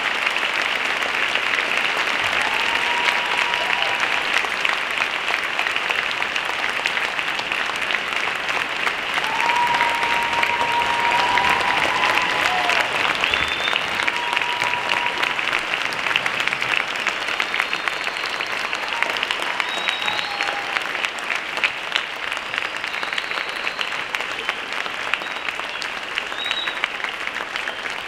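Crowd applauding: a long round of dense clapping that eases off near the end.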